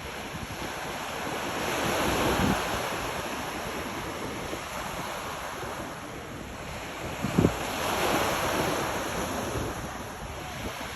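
Sea waves washing onto the shore, swelling about two seconds in and again around eight seconds in. Wind buffets the microphone with a few low thumps.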